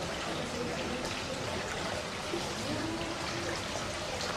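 Steady rushing, pouring noise like running water, with faint voices in the background.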